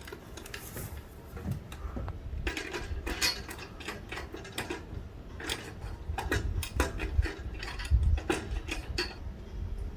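A run of irregular mechanical clicks and ratcheting rattles, some close together and some spread out, over a low rumble.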